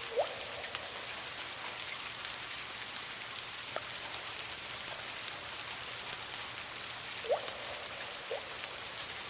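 Soft rain falling in a steady hiss, with a few water drops plinking now and then, each a short note that rises quickly in pitch.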